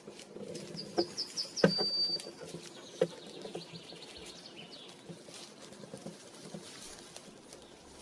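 A forest songbird calling: a quick run of about five chirps, then a held high whistle, and a faint trill a couple of seconds later. Several sharp knocks and clicks, the loudest about a second and a half in, sound over a low rustle.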